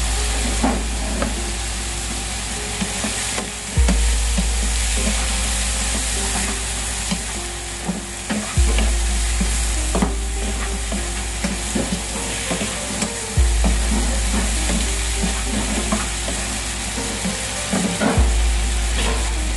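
Shrimp frying in a pan: a steady sizzle, with a utensil scraping and clacking against the pan as the shrimp are stirred. Underneath, a low hum starts afresh about every five seconds.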